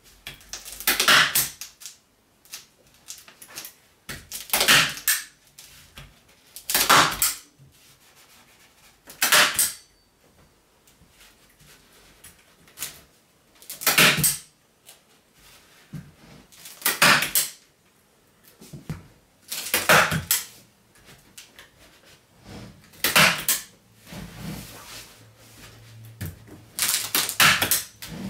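Hand-held staple gun firing staples through fleece fabric into a fibreglass-covered polystyrene frame. There are about nine loud snaps, each a few seconds apart, with fainter clicks and rustles of the fabric between them.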